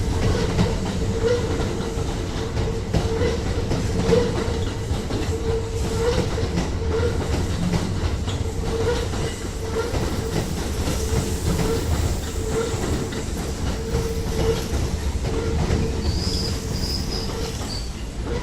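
A two-set electric train running out of service, with a steady rumble of wheels on rail and a quick, irregular clatter of rail joints. A brief faint high squeal comes near the end.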